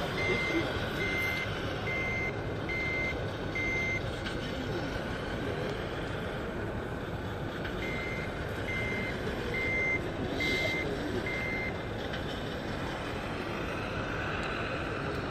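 Reversing beeper of a radio-controlled scale tipper truck's sound module, beeping about once a second in two runs with a pause of a few seconds between them, over steady hall noise.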